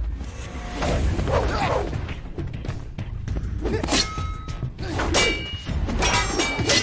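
Metal blades clashing with ringing clangs, several strikes, most of them in the second half, over background music.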